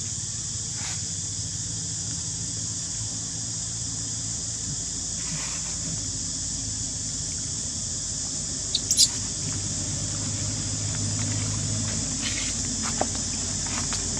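Steady high-pitched insect chorus, with a quick cluster of three short, high squeaks about nine seconds in.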